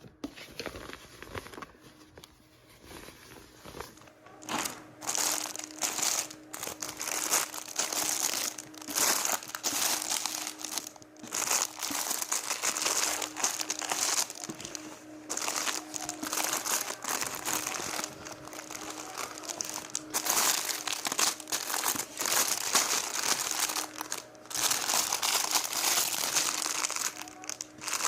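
Plastic packaging crinkling and rustling as it is handled and opened, quieter for the first few seconds and then dense, irregular crackly rustles with short pauses.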